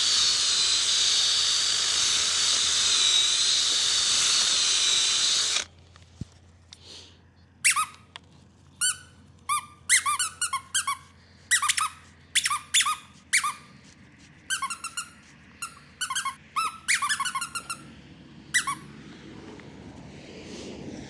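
Power drill running steadily for about five and a half seconds with a high, slightly wavering whine as it screws an insulator for electric fence wire into a wooden post, then stopping suddenly. After a short pause comes a long run of short, high squeaks in quick clusters of two to five.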